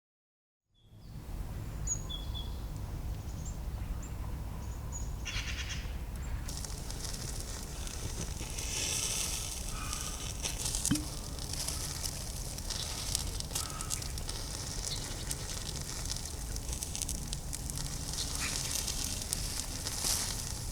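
A few birds chirping over a steady low rumble, then a campfire crackling and popping from about six seconds in.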